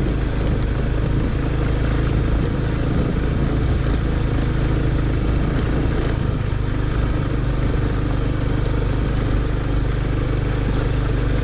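Motor scooter engine running steadily at low speed under a steady hiss of noise, while riding over a rocky dirt trail; the engine note shifts slightly about halfway through.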